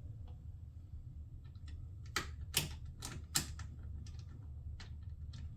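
Small sharp clicks and taps of a bolt and washer being handled and fitted on a plastic radiator shroud, with four louder clicks in quick succession about two to three and a half seconds in, over a low steady hum.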